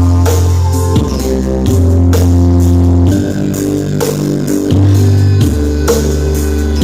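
Loud music played through a big sound system of subwoofer stacks: heavy held bass notes that change every second or so under a melody, with regular drum hits.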